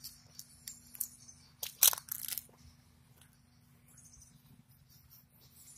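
Irregular crunches and clicks during the first two and a half seconds, then a few faint bird chirps.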